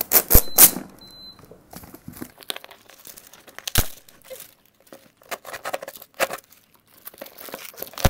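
A cardboard delivery box being cut and torn open, with its plastic wrapping crinkling: irregular rips, crackles and a few sharp snaps.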